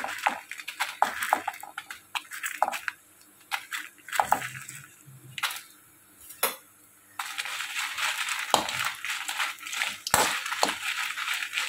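Dried red chillies being handled and roasted in a kadai with a little oil: a run of light clicks and crackles, then a steady frying hiss that starts suddenly about seven seconds in.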